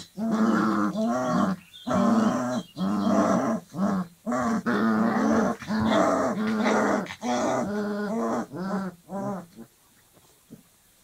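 25-day-old Dogo Argentino puppies growling at each other as they play-fight, in a string of short pitched bouts with brief gaps, falling silent near the end.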